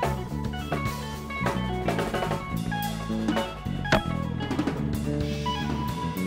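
Background music: a band track with a drum kit beat under guitar and bass notes.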